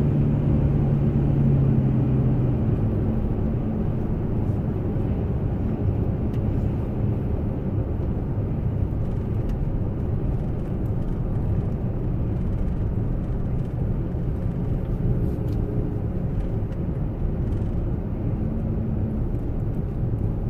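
Steady road and engine noise inside the cabin of a moving car, a low rumble with a hum that eases about two seconds in.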